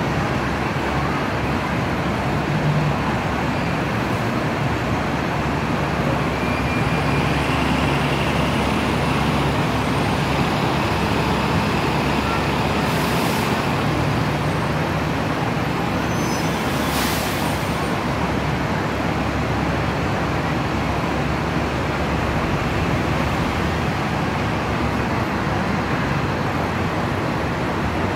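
Steady city street traffic heard from above: double-decker buses and cars running past in a continuous rumble. Two short hisses sound about halfway through.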